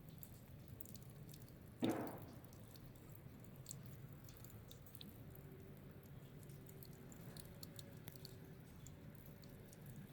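Faint crisp crackling of snow being walked on, scattered small clicks rather than a strong step rhythm. A single dull thump about two seconds in is the loudest sound, and a faint steady hum comes in about halfway through.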